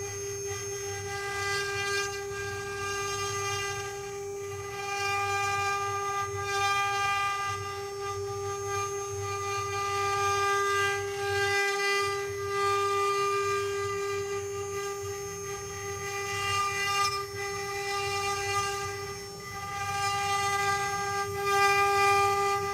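CNC wood carving router running, its spindle giving a steady high whine, with cutting noise that swells and fades every few seconds.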